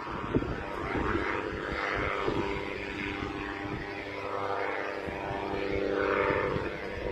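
Propeller aircraft engine running steadily, its pitch swelling and falling every second or two, with strong wind buffeting the microphone.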